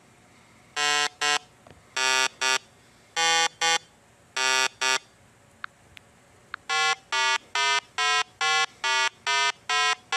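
Electronic 8-bit video-game beeps: four double beeps, a longer tone then a short one, about once every 1.2 seconds, then after a short gap a steady run of single beeps about two and a half a second.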